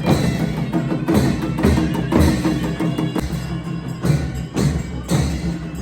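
Background music with a steady percussive beat of wood-block-like hits.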